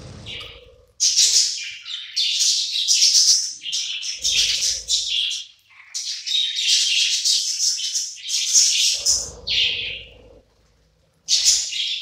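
A flock of budgerigars chirping and chattering in quick, high-pitched bursts, briefly pausing near the end before starting up again.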